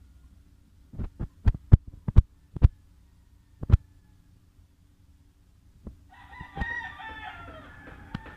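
A quick run of sharp clicks or taps about a second in, then a rooster crowing once, a call of about two seconds near the end, over a faint steady hum.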